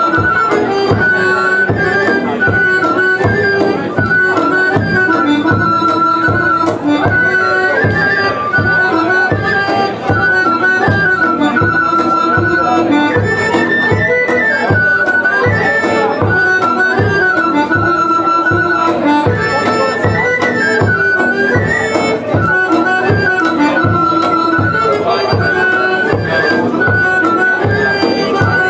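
Serbian kolo folk dance music: a repeating melody over a fast, even beat.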